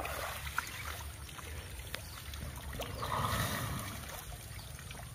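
Asian elephant splashing water with its trunk: a short splash at the start and a longer splash and spatter about three seconds in.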